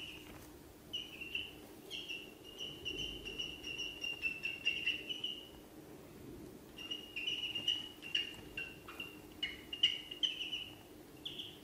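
Ducklings peeping: rapid runs of short, high peeps in two bouts, with a pause of about a second in the middle.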